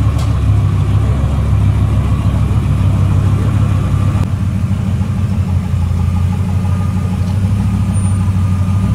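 Dodge Ram SRT-10 pickup's 8.3-litre V10 idling steadily, a low, even exhaust note.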